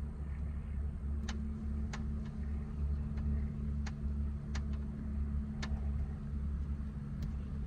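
A handful of sharp, separate clicks from the shift knob and shift boot parts being handled and fitted on the shifter, over a steady low rumble.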